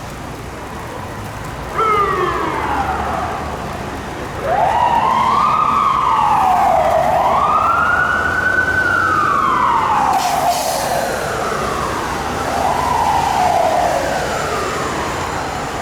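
Fire apparatus electronic siren worked by hand in manual mode. Its pitch is pushed up and let fall again: a few quick falling sweeps, and one longer rise and fall through the middle.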